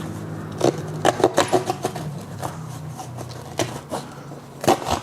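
The small saw blade of a Stanley 12-in-1 multitool sawing cardboard by hand, in short scratchy strokes. A quick run of strokes comes about a second in, a few single strokes follow, and a faster run comes near the end, over a low steady hum.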